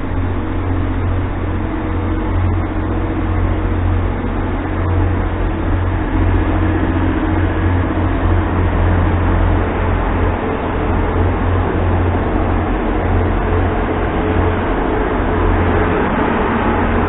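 Steady low drone of a train's engine running at a standstill, with a constant hum and a few steady tones.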